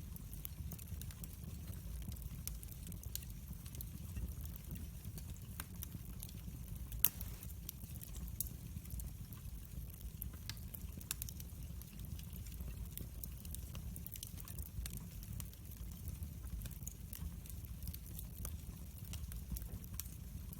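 Wood fire in a fireplace crackling, with scattered sharp pops over a low steady rumble and one louder crack about seven seconds in.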